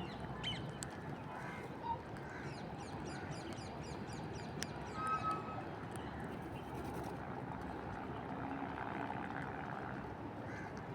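Parrots calling in short, scattered squawks over a steady background hiss, with a quick run of high chirps a few seconds in and the loudest calls near the middle.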